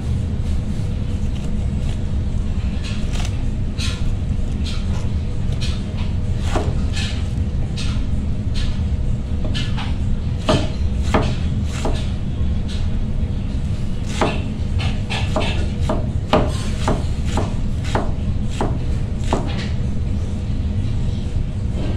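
Large kitchen knife slicing through a head of cabbage and knocking against the cutting board: irregular cutting strokes, some in quick runs of several, starting a few seconds in. A steady low rumble sits underneath.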